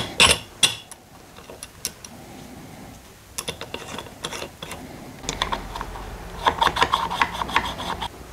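Machined aluminium two-stroke crankcase halves being handled and fitted together on their studs: metal clicks and scrapes, a few scattered knocks, then a quick run of rattling clicks about two seconds before the end.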